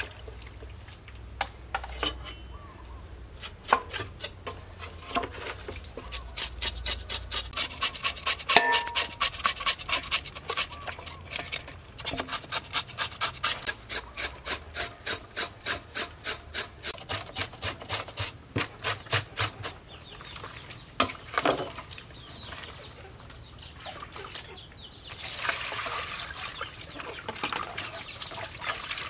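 A pig's head being scraped clean in a steel basin: a long run of rasping strokes, about two a second, that stops near the end.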